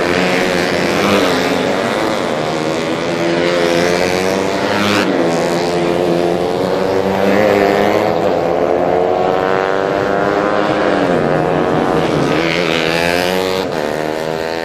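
Racing motorcycles running flat out, engines revving high, the pitch climbing and dropping repeatedly as they shift gears and pass, with one deep drop and fresh climb near the end.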